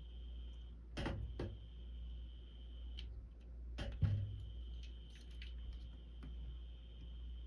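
A door-hanging cat toy knocking and rattling as it is batted: a few light knocks in the first seconds, then a louder thump about four seconds in. A steady high-pitched trill runs behind, dropping out briefly now and then.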